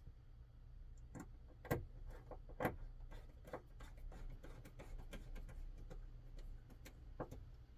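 Light, irregular clicks and taps of a small driver bit and metal knife parts as a folding knife's screw is turned in during reassembly, with two louder clicks about two and three seconds in.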